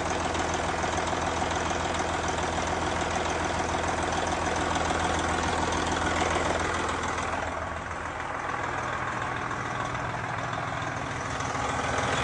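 Freshly rebuilt Detroit Diesel Series 60 12.7-litre diesel in a Freightliner semi truck running steadily at idle, a sound its owner calls really noisy. It eases off a little about eight seconds in and grows louder near the end.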